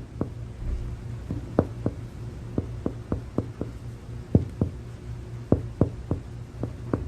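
Finger percussion of the chest wall: sharp taps, often in pairs, about three a second, as the examiner percusses down the right front of the chest from resonant lung toward liver dullness to find the level of the diaphragm. A steady low hum runs underneath.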